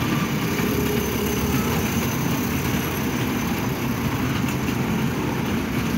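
Motorised odong-odong kiddie carousel running, its cars rolling round their circular steel track with a steady rumble. The ride's music cuts off right at the start.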